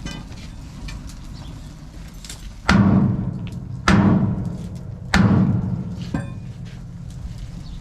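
Three heavy hammer blows on steel, about a second and a quarter apart, each ringing out briefly, struck at a seized hub on a scrap muck spreader to free it.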